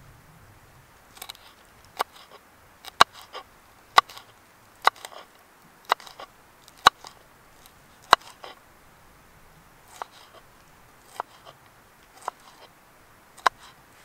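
Knife chopping red pepper on a wooden cutting board: crisp, irregular knocks of the blade through the pepper onto the board, about one a second, starting about a second in.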